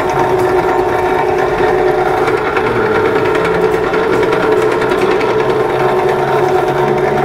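Electric noodle-sheeting machine (Maksindo MKS-180SS, stainless) running steadily, its motor-driven rollers giving a constant pitched hum as dough is fed through them.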